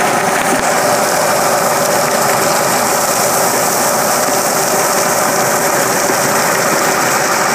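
High-pressure water jet blasting silt and gravel out of a drain culvert: a loud, steady spray, over the running of the 280 HP Cummins diesel engine driving the 6000 psi triplex water pump.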